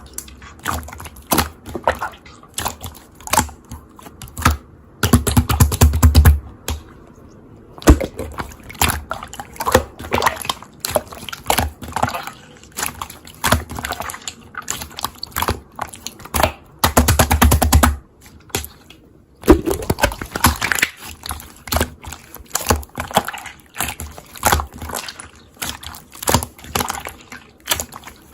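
Hands squishing and pressing slime, making an irregular run of sticky clicks and pops. Two longer spells of dense crackling come about five and seventeen seconds in.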